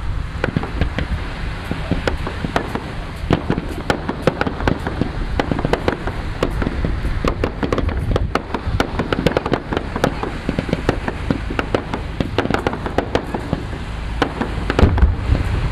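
Fireworks display: a dense, rapid barrage of crackling bangs and reports from bursting shells, many per second, over a constant low rumble, with a heavier deep boom near the end.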